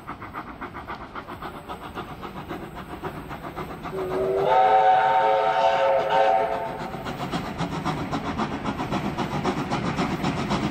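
Steam locomotive 3016, an NSW 30 class engine, approaching with a quick, even beat underneath. About four seconds in, its whistle sounds, sliding up in pitch and then held for about two seconds.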